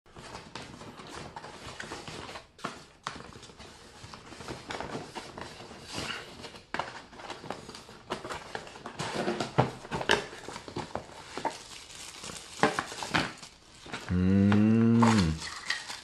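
Packaging being handled and opened: irregular crinkling and light knocks of plastic wrap and cardboard. Near the end a low, drawn-out vocal sound of about a second and a half, falling in pitch as it stops.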